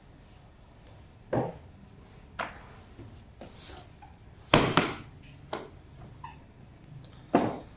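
Scattered knocks and thumps on a bakery work table as dough balls are pressed flat and a rolling pin is handled: about six strokes, the loudest a quick pair about four and a half seconds in and another near the end.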